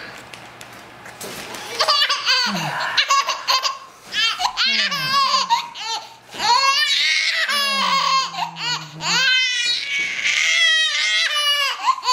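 Baby laughing in a fit: starting about two seconds in, bursts of high, wavering giggles and belly laughs come again and again with short breaks for breath.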